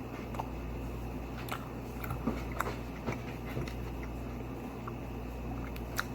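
A person chewing a mouthful of baked apple slice with whipped cream: soft, wet eating sounds with scattered small clicks, over a steady low hum.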